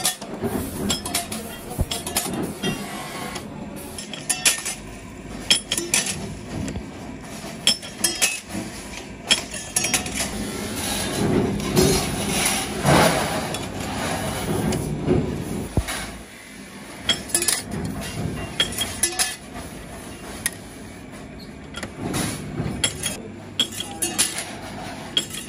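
Thin sheet-steel trowel blanks clinking and clattering against each other as they are handled and fed between the steel rollers of a small motor-driven roller machine, over a steady low hum.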